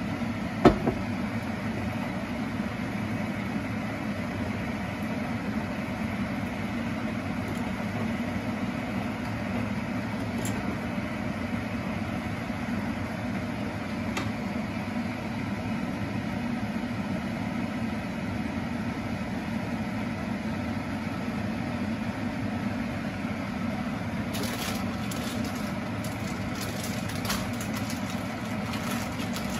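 Steady low mechanical hum, with a single knock about a second in and light sizzling crackles from the pan of vegetables and chicken in soy sauce and water in the last few seconds.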